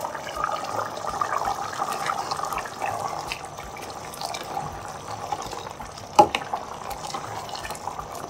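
Pot of soup simmering on a gas stove and being stirred with a plastic ladle, a steady wet bubbling and stirring sound with small clicks. One sharp knock about six seconds in.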